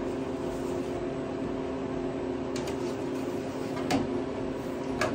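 Steady hum of a Harvest Right home freeze dryer running its refrigeration to chill the chamber, with three short clicks of metal trays being set on the shelves.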